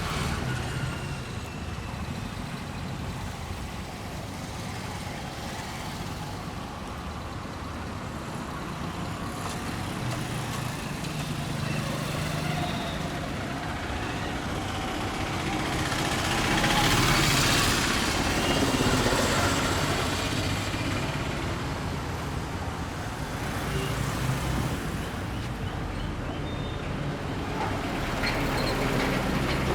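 Road traffic noise with a steady low rumble. A vehicle passes louder a little past halfway, then fades.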